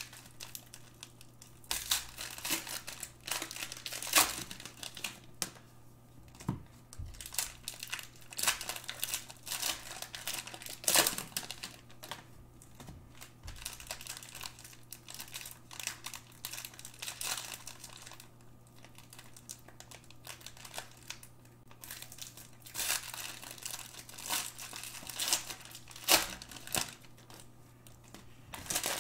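Plastic and foil trading-card packs (Panini basketball packs) being handled and unwrapped, crinkling irregularly, with a few sharper, louder crackles.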